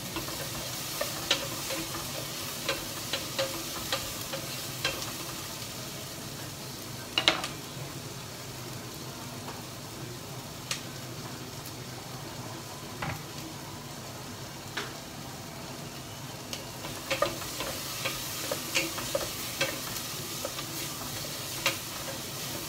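Onions sautéing in oil in a stainless steel pot, a steady sizzle. A wooden spoon stirs and knocks against the pot in clusters during the first few seconds and again in the last few, with one louder knock about seven seconds in.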